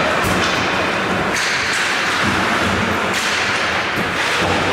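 Hockey game play in a rink: a steady noisy wash with several sharp knocks and thuds of sticks, puck and boards.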